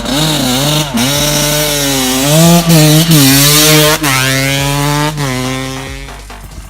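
KTM 200 EXC two-stroke engine with an FMF exhaust, revving hard and rising and falling with the throttle. The throttle is snapped shut and reopened several times, and the sound dies away near the end.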